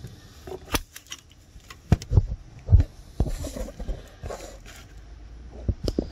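Irregular clicks, knocks and rustling as hands move an alternator wiring harness aside in an engine bay, with handling noise from a phone held close; the loudest knocks come about two and three seconds in.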